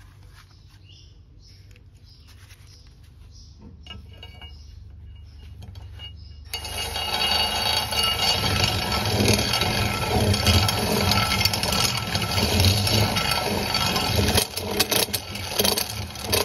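Cordless drill with a twist bit running steadily in the shock-mount bolt hole of a powder-coated steel A-arm, starting about six and a half seconds in. It is drilling out excess powder coat so the bolt fits. Before it starts there are only faint clicks of parts being handled.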